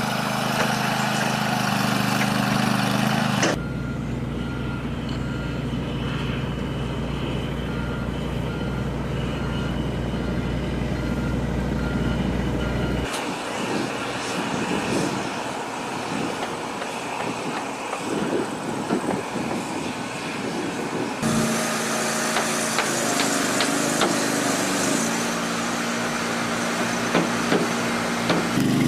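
Diesel engines of a John Deere 350G excavator and 460E articulated dump trucks running, heard in several shots that change abruptly. For several seconds near the start, a reversing alarm beeps steadily over the engine noise.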